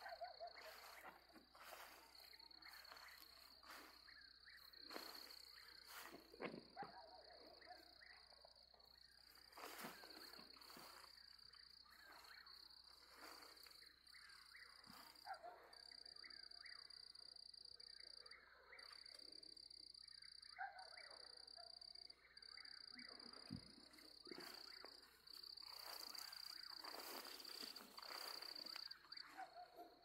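Faint night chorus of insects trilling steadily at a high pitch, with frogs croaking at intervals beneath it.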